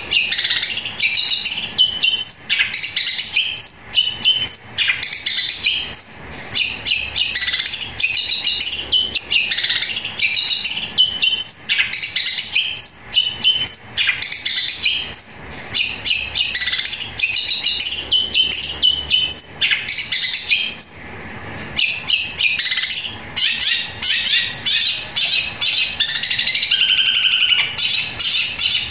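Caged long-tailed shrike (cendet) singing a long, loud, unbroken song of rapid chirps and sharp falling whistles, in the sparrow-mimicking 'gereja' voice. It pauses briefly about 21 seconds in, and the chatter turns faster and denser near the end.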